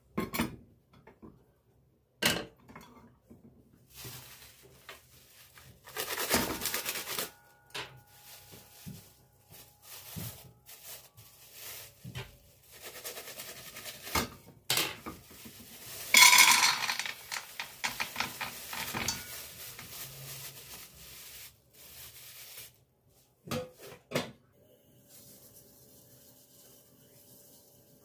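Cookware handled on a gas hob: a few sharp knocks of a pot and its glass lid being set down, and a plastic freezer bag rustling as frozen cherries are tipped rattling into the pot. A faint steady hum remains near the end.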